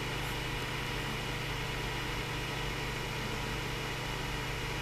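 A steady low machine hum with an even hiss over it, unchanging throughout, with no distinct knocks or clicks.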